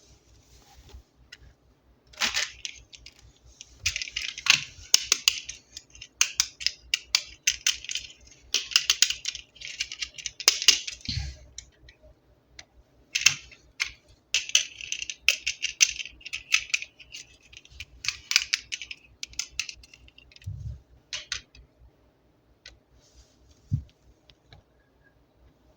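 Close-up handling of plastic toy packaging and toys: crinkling and rustling in bursts, with many small clicks and taps, thinning to a few light taps near the end.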